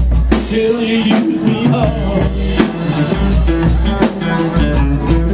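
Live blues-rock band playing: a man singing into a microphone over electric guitars and a drum kit. The drums thin out briefly near the start and come back in strongly about halfway through.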